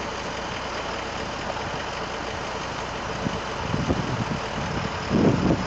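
Tow truck engines idling steadily, with brief muffled voices near the end.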